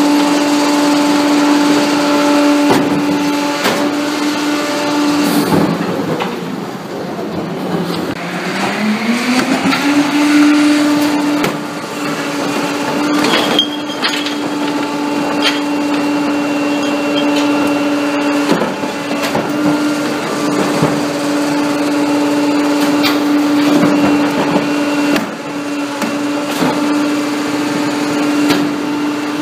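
Pak-Mor rear-loader garbage truck's engine and hydraulics running with a steady hum while its cart tipper lifts and empties a recycling cart, with scattered clanks and knocks from the cart and the falling recyclables. About five seconds in, the hum drops in pitch and then climbs back up over the next few seconds.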